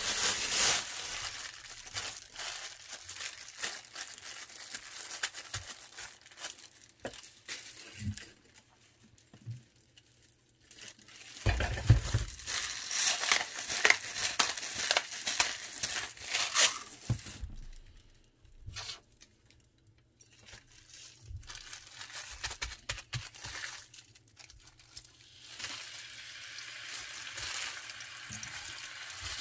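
Plastic wrapping crinkling, with irregular clicks and rustles as raw beef is handled and seasoned on a steel plate. Near the end, a steady sizzle as the Korean beef sirloin starts frying in an oiled frying pan.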